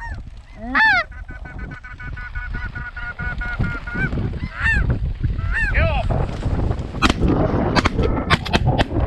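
Snow geese calling: loud, high nasal honks, with a fast stretch of overlapping chatter from a flock. From about seven seconds in, several sharp cracks come in quick succession, likely shotgun shots at the birds.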